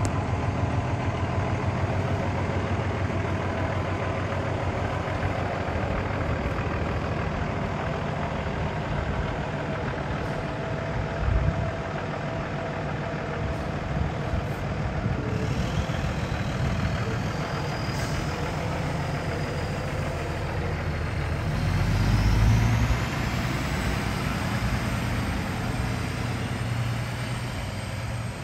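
Cummins ISX 435 hp inline-six diesel of a 2007 International Eagle 9400i grain truck running as the truck drives off, a steady low engine note. A short thump comes about a third of the way in, and past the middle a high whistle rises in pitch while the engine briefly pulls louder.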